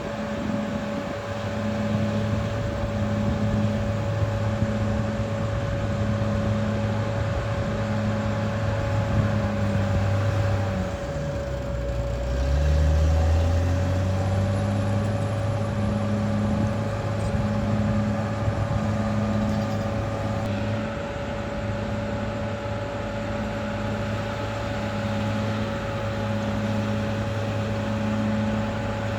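Caterpillar D6R XL bulldozer's diesel engine running steadily under load, with a steady whine above the engine note. About twelve seconds in, the engine note dips and then picks back up.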